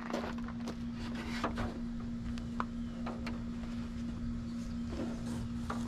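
Chevy Silverado headliner board being worked out of the cab, with scattered light scrapes, rustles and knocks as it rubs against the trim and steering wheel. A steady low hum runs underneath.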